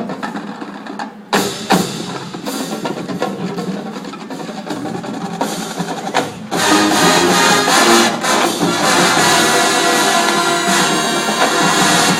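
Marching band percussion playing sharp clicking strokes over a quieter bed, then the full band, brass included, comes in loud about halfway through and holds sustained chords.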